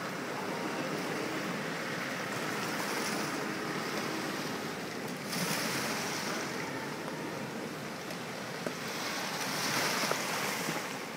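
Sea wash and wind buffeting the microphone, with a boat's motor running under it as a barge comes in towards the jetty. The noise swells twice, about five seconds in and again near the end.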